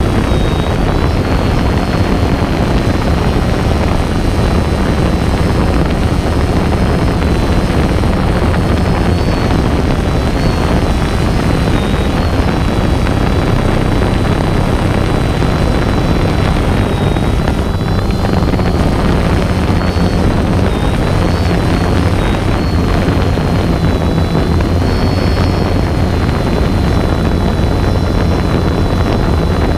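Multirotor drone's motors and propellers buzzing steadily, heard close up from the drone itself, with a high whine that wavers up and down in pitch as it manoeuvres.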